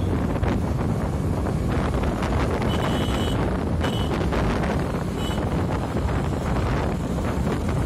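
Wind buffeting the microphone of a moving motorcycle, over a dense, steady rumble of the ride and passing road traffic. A few short high beeps sound about three to five seconds in.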